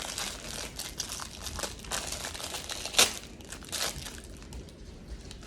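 Plastic packaging crinkling as it is handled, a run of small crackles with a sharper crackle about three seconds in.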